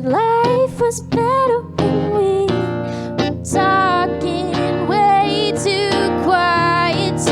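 A woman singing a slow song with acoustic guitar accompaniment, her voice sliding between long held notes.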